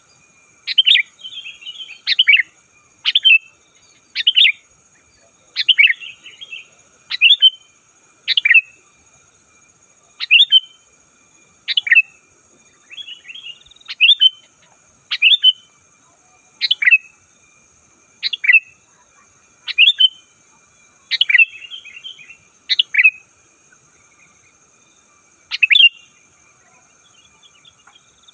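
Sooty-headed bulbul singing: short, loud, chirpy phrases repeated about every second or second and a half, with a couple of longer pauses. A faint steady high hum runs underneath.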